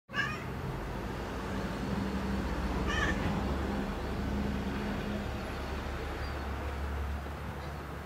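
Domestic cat giving two short, excited meows at birds it is watching, one at the very start and one about three seconds in, over a steady low hum.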